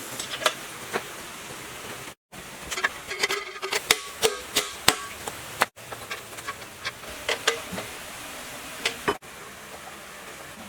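Scattered sharp clicks and knocks over a steady hiss, thickest about three to five seconds in, broken three times by brief sudden dropouts.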